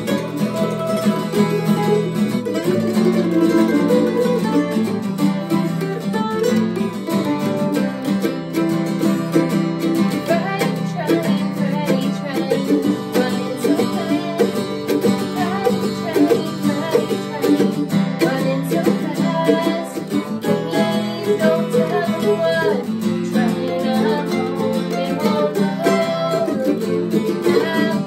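Acoustic guitar and F-style mandolin playing a tune together.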